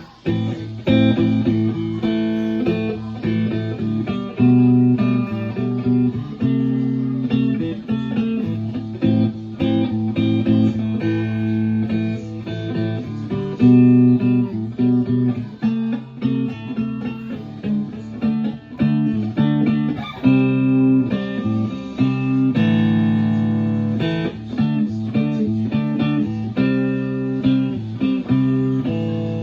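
Telecaster electric guitar in open D-A-D-E-A-D tuning, played with a run of picked notes and chords that ring on between strokes.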